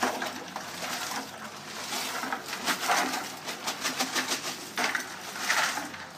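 A boy's stifled laughter behind his hand, in short breathy bursts that come thickest in the middle.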